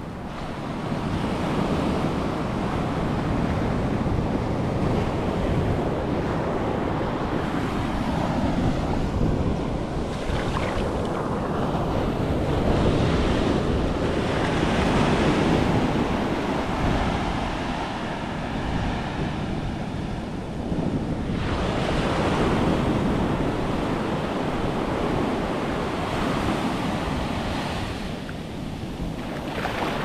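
Ocean surf breaking and washing up over the sand at the water's edge: a continuous rushing and fizzing that swells and eases as each wave comes in, with a fresh surge about two-thirds of the way through. Wind buffets the microphone underneath.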